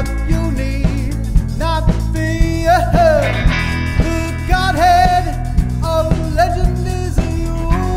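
Rock band music: a wavering, bending lead melody over bass and regular drum hits.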